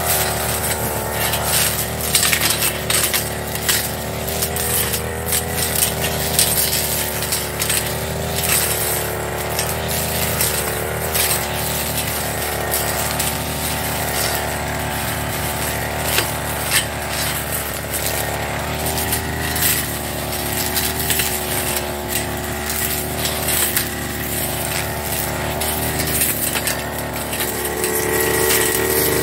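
Firman FGB389 backpack brush cutter running at high speed while its blade cuts dry grass and saplings. The engine pitch wavers with the load, and the blade makes frequent sharp ticks as it strikes stems. It grows louder near the end.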